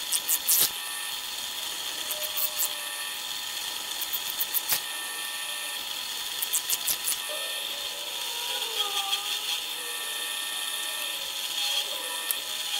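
Pillar drill running with a steady motor hum, with sharp clicks and rattles at a few moments as the bit is fed into a wooden board.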